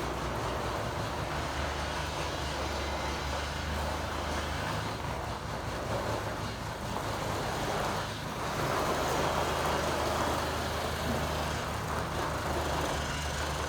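Delivery truck's engine running steadily at idle, a low even hum with a hiss over it.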